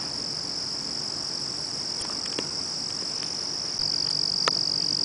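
Steady high-pitched chorus of night insects trilling, growing louder about four seconds in, with a single sharp click near the end.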